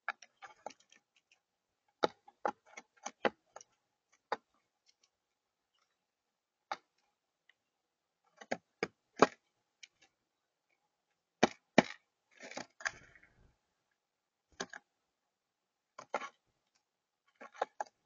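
Blue jay pecking at peanuts and seed on a hard tabletop: sharp, irregular taps, often two to four in quick succession, with one longer scraping rustle about two-thirds of the way through.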